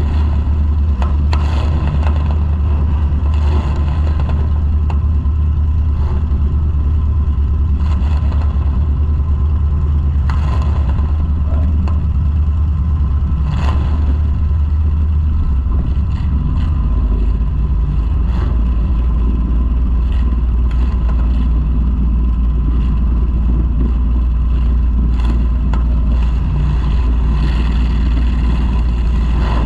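Demolition derby car's engine idling loudly at close range, a steady low rumble whose note drops slightly about halfway, with occasional knocks and clanks.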